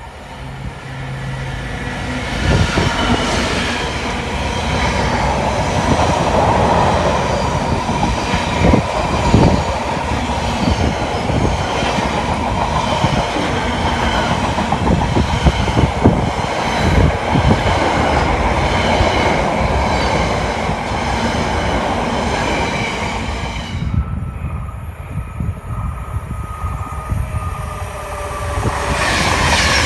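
Class 66 diesel freight locomotive and a long rake of loaded box wagons passing close at speed: engine noise, then wheels rumbling and clattering with many knocks, which stop abruptly about 24 s in. Near the end, an Avanti West Coast Pendolino electric train approaches with rising noise.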